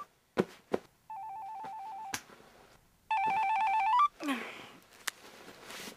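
Mobile phone ringing: a warbling trill of two rapidly alternating tones, in rings of about a second, twice, the second louder. The ringing stops about four seconds in, followed by a soft rustle.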